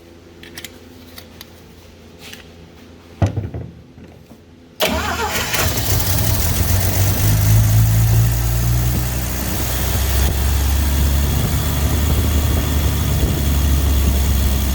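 A newly fitted starter engages with a sharp jolt and turns the 1964 Dodge D100's engine over, and about five seconds in the engine catches and keeps running steadily. The new starter is working.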